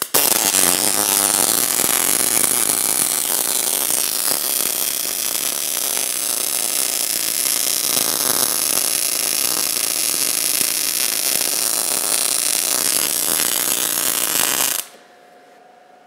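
MIG welding arc burning steadily with a dense crackle as a mechanized carriage drives the torch along a steel plate, laying a push-technique bead at a normal torch angle. The arc cuts off suddenly about fifteen seconds in.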